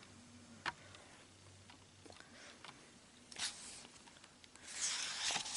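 Pages of a paperback manga volume being handled and turned: a soft tap about a second in, a brief rustle partway through, and a longer papery rustle near the end as a page is turned.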